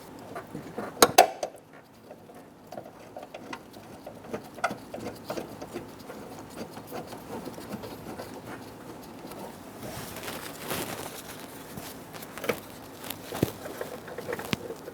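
Scattered light clicks, taps and rustling of hands working on a truck door and its hardware, with a sharper click about a second in and several more near the end.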